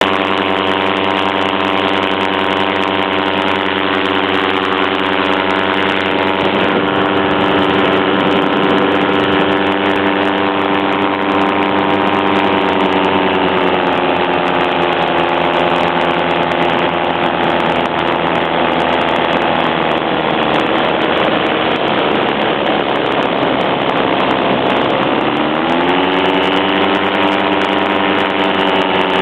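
Small engine running steadily under loud wind rush, in the manner of a paramotor in flight. Its pitch sags slowly, dips briefly near the end, then climbs again.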